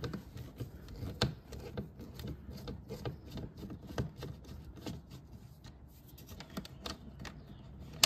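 Hand screwdriver backing a screw out of a plastic door-handle bracket: faint, irregular small clicks and scrapes, with a few louder clicks.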